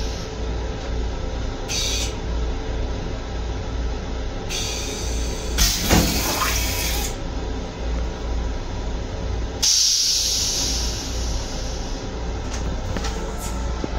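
Long Island Rail Road M7 railcar toilet flushing: water sprays into the stainless steel bowl in three bursts, the longest about five to seven seconds in, over a steady low rumble.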